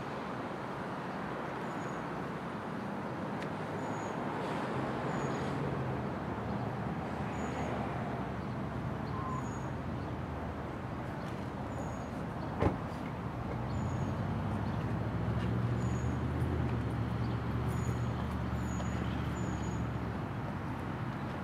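SEPTA electric multiple-unit commuter train approaching on the Northeast Corridor: a low, steady hum from the train that grows louder about two-thirds of the way through, with one sharp click a little past halfway. A faint high chirp repeats every second or two.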